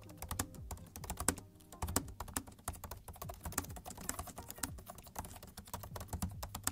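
Typing on the M1 MacBook Pro 13's scissor-switch Magic Keyboard: a rapid, irregular run of key clicks.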